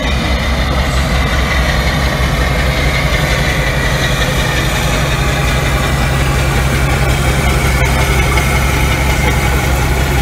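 Class 52 'Western' diesel-hydraulic locomotive's twin Maybach engines running under power as it draws slowly away with its train. A steady, deep engine note that grows slightly louder as the locomotive passes.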